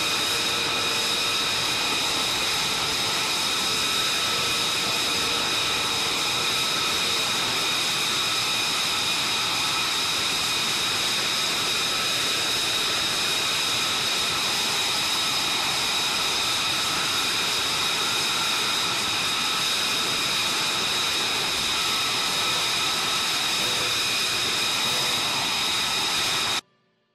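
F-35 fighter's F135 jet engine running with a steady, high-pitched whine over a loud rush of noise; the sound cuts off suddenly near the end.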